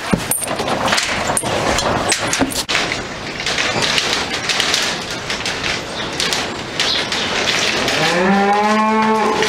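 A cow moos once near the end: a low call that rises in pitch, then holds steady for about a second and a half. A steady rustling noise runs beneath it throughout.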